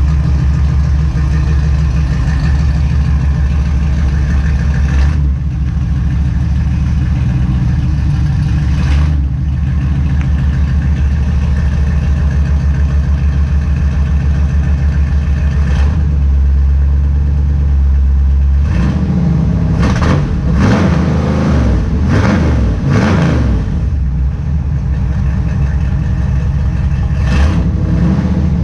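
Dodge Dakota R/T's 410-cubic-inch stroker V8 running after a cold start, idling with a steady pulsing beat. About two-thirds of the way through it is revved in a quick series of throttle blips, and once or twice more near the end.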